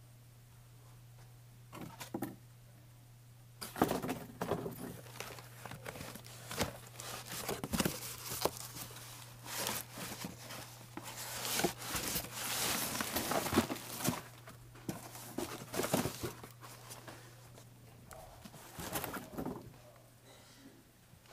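Close handling noise: irregular rustling, crinkling and clicking as things are handled right at the microphone, starting a few seconds in and thinning out near the end. A steady low hum lies underneath throughout.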